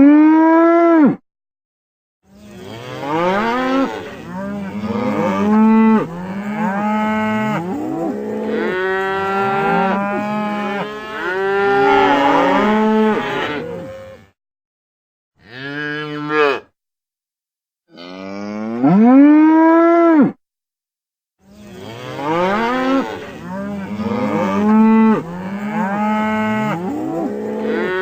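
Several cows mooing, many long moos overlapping one another, each rising and then falling in pitch. The run of calls is broken four times by a short, sudden silence of about a second.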